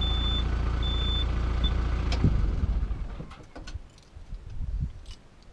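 Skid loader engine running with its reverse alarm beeping, about one beep every 0.8 s. The beeps stop about two seconds in; after a knock the engine sound dies away, leaving only faint ticks and knocks.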